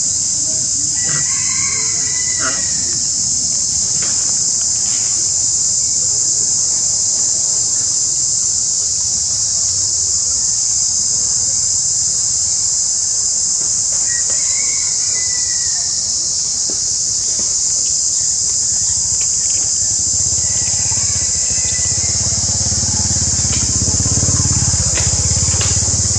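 Steady, loud high-pitched drone of an insect chorus, with a few short high calls rising above it about a second in, around the middle, and near the end.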